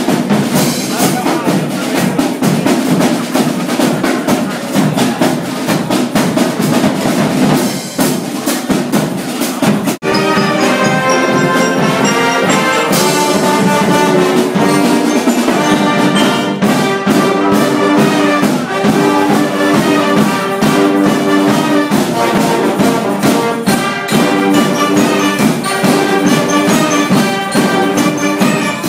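Live brass band with drums playing. The first part is dense and drum-heavy; after a brief break about ten seconds in, the brass comes in with held chords over a steady beat.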